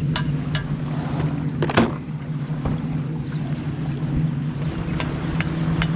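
Boat motor running steadily, with a few light clicks and one louder knock about two seconds in.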